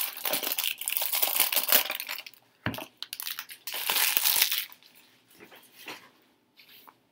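Thin plastic wrap crinkling as it is pulled off a deck of tarot cards, then a single light knock as the deck is set down on a wooden desk, followed by another short burst of crinkling plastic.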